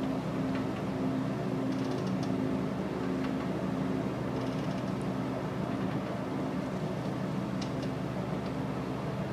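A steady low hum from an idling diesel engine, with a few faint, short high ticks now and then.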